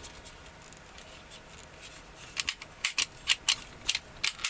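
Sharp plastic and metal clicks of a Tokyo Marui Curve airsoft pistol being reassembled, its parts snapping and sliding into place. The clicks come as a quick run, about two or three a second, starting about halfway through.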